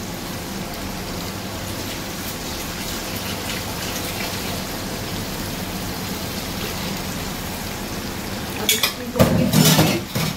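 Hot oil and masala sizzling steadily in a pan. About nine seconds in come a few clinks of utensils, then a loud burst of sizzling as freshly ground spice paste goes into the hot oil.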